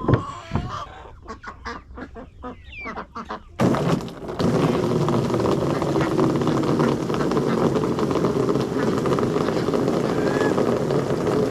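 Ducks and geese give a few short calls. Then, about three and a half seconds in, water from a garden hose starts abruptly, rushing and splashing steadily into a plastic duck pool as it is refilled.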